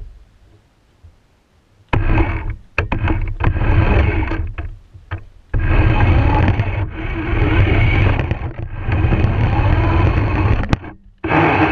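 Radio-controlled car driving over a hardwood floor, its motor, gears and wheels heard up close from on board. It sets off about two seconds in and runs in long spurts with brief stops, with a few sharp clicks and knocks along the way.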